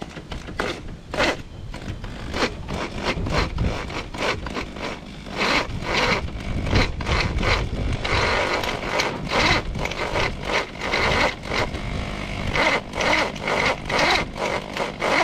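Makita HP1630 drill running in short, repeated bursts as its bit cuts into a snapped cylinder head bolt in a Renault F4R head, the bit lubricated with chain oil, drilling the bolt out.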